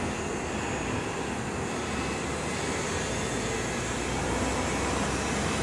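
Steady outdoor background noise, a low rumble under an even hiss with no distinct events, growing slightly louder in the last couple of seconds.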